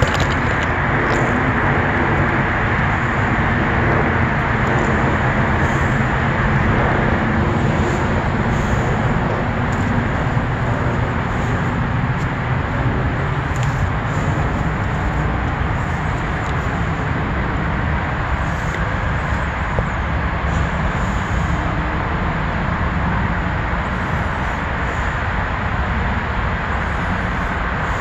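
Steady city traffic noise with a low rumble. A pitched engine hum is heard over it for the first several seconds, fading out about seven seconds in.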